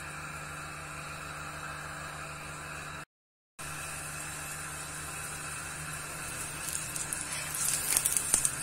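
Steady kitchen hum, cut by a brief dropout about three seconds in. From about six and a half seconds, oil under an aloo paratha on a hot iron tawa starts sizzling and crackling as a spatula presses it, loudest near the end.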